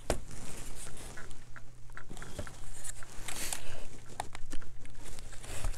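Hard plastic housing of a truck's integrated power module (fuse and relay box) being handled and turned over on a work mat: scattered clicks and knocks of plastic, with a short scraping rub about three and a half seconds in.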